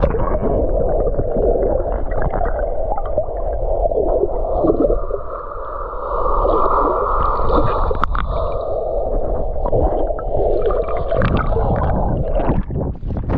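Muffled water gurgling and sloshing close against the microphone, a dense continuous rumble with no clear strokes and little high sound.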